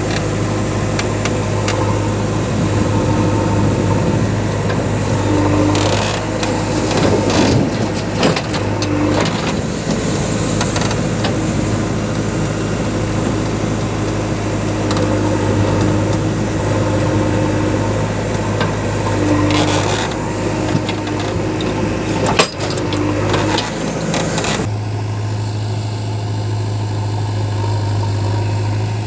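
Diesel engines of a JCB 3DX backhoe loader and a tractor running steadily while the loader works, with a low hum, clatter and a few sharp knocks. About 25 seconds in, the clatter drops away and only the steady low engine hum remains.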